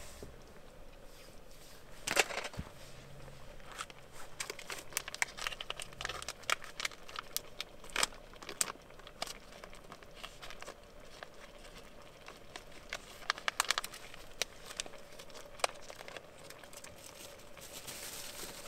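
A plastic pouch of pre-cooked rice being handled and opened, crinkling in irregular crackles, with a few sharper, louder crackles scattered through.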